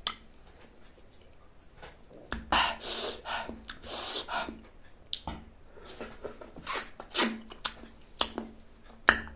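Close-miked mouth sounds of eating passion fruit: wet chewing and slurping of the pulp and seeds in short, irregular bursts, starting about two seconds in.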